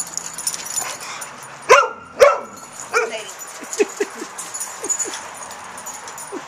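Dog barking in play: two loud barks about two seconds in, another a second later, then a run of short, higher yips.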